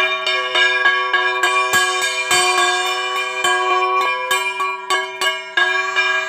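Brass puja hand bell (ghanta) rung continuously, its clapper striking several times a second so that the ringing tones overlap and never die away.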